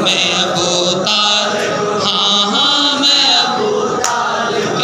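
A man chanting an Urdu naat into a handheld microphone, his voice moving between long held notes and shorter sung phrases.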